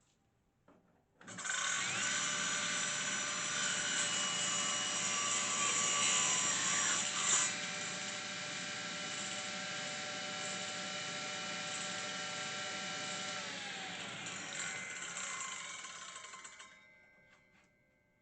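An electric power tool switches on suddenly and runs steadily for about fifteen seconds, then is switched off and winds down.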